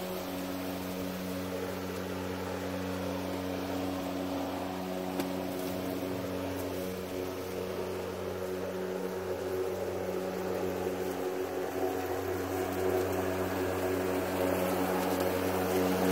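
Hart 40-volt brushless cordless lawn mower running and cutting grass: a steady electric hum with a low, even pitch, slowly growing louder as it comes closer.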